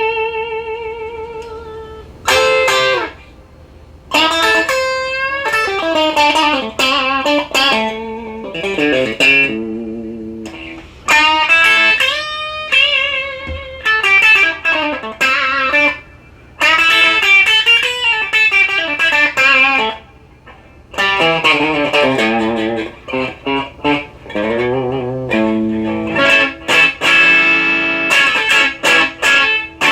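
Strat-style ESP LTD electric guitar with Duncan Designed pickups, played through a Maxon OD-9 overdrive into a Marshall DSL1 amp. It plays melodic lead phrases with string bends and wide vibrato, with short pauses between phrases.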